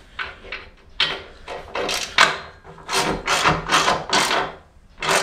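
Hand ratchet clicking in about a dozen short rasping bursts, one on each return stroke, as a luggage-rack mounting bolt is tightened. The bursts come faster from about three seconds in.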